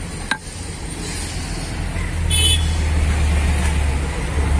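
A motor vehicle's engine rumble grows louder about two seconds in and carries on, with a brief high-pitched beep over it just as it swells. A single sharp click comes just after the start.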